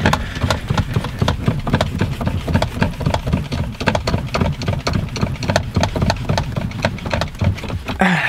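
Car engine idling, heard from inside the cabin, with a rapid, irregular knocking rattle.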